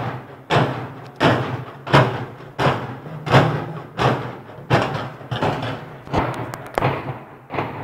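Loud rhythmic knocking: heavy thuds struck in steady time, about one every 0.7 seconds, each with a short ring after it. Near the end the strokes grow weaker and less even.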